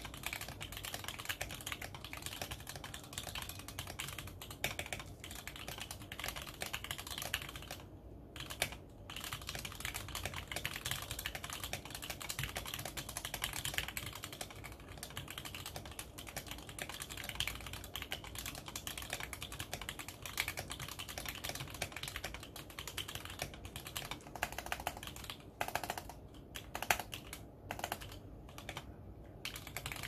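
Fast, steady typing on a Tofu65 mechanical keyboard fitted with stock FFF switches, a brass plate and black PBT keycaps: a dense stream of key clicks and bottom-outs, with short pauses about eight seconds in and a few more near the end.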